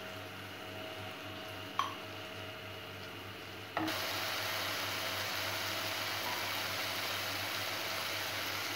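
Onion-tomato masala sizzling in a kadai after a splash of water is stirred in, with one light knock of the wooden spatula a couple of seconds in. About four seconds in it jumps to a louder, steady frying hiss as the masala cooks down toward the point where the oil separates.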